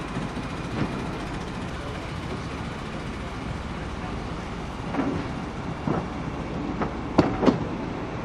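Rake of railway vans rolling slowly past during shunting, a steady rumble with wheels clicking and knocking over the track from about five seconds in, the two loudest knocks near the end.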